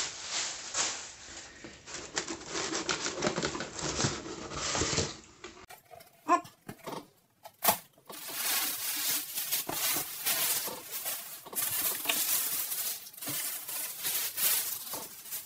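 Tissue paper rustling and crinkling in irregular bursts as it is unwrapped and pulled off a boxed toy figure, with a short lull of a few sharp ticks about six seconds in.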